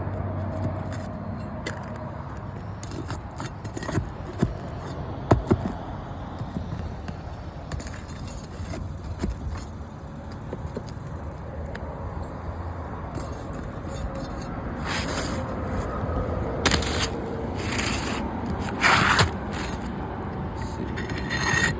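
Scraping and rubbing of hard objects being handled, with scattered sharp clicks.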